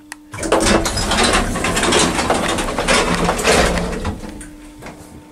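Small elevator's door machinery clattering and ratcheting loudly for about three and a half seconds as the car stands at the ground floor and the door is opened. It fades near the end as the door is pushed open by hand.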